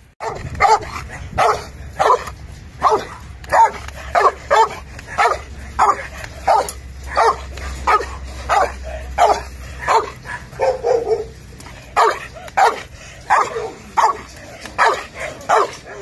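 Belgian Malinois barking hard and repeatedly, about one and a half barks a second, with one longer, lower bark about eleven seconds in.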